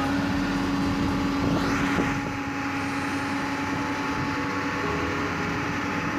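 Hyundai hydraulic excavator's diesel engine running steadily under load as it swings a suspended steel pipe. A brief rising whine comes about two seconds in.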